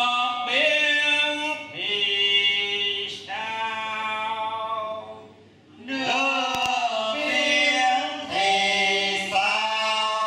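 A group of voices chanting in unison without accompaniment, a class reciting after its teacher in long drawn-out, sung syllables. The chant comes in two phrases with a short break about five and a half seconds in.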